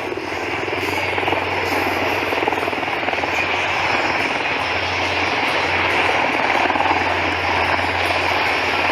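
Aircraft engine running steadily with a fast propeller or rotor chop and a low hum, growing slightly louder.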